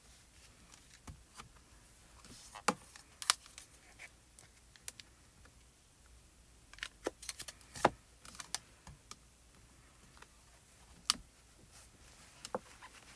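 Scattered sharp plastic clicks and light taps from handling an ink pad and a hinged stamping tool's clear acrylic door, as an ink pad is tapped onto a clear stamp. The clicks come in three bunches.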